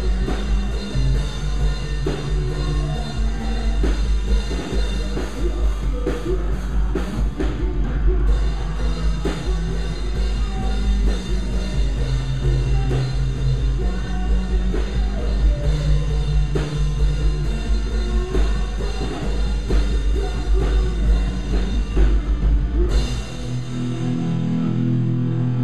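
Post-hardcore band playing live: drum kit, bass and distorted guitars at full volume. About 23 seconds in, the drums and bass drop out, leaving the guitar on its own.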